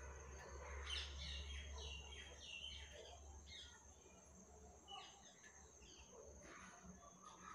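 Faint outdoor ambience: birds chirping in short scattered calls over a steady high-pitched insect drone and a low hum.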